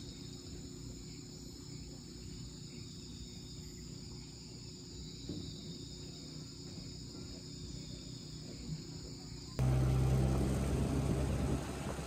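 Insects chirring steadily, several high tones held together. About ten seconds in this gives way to a much louder low rumble that lasts about two seconds.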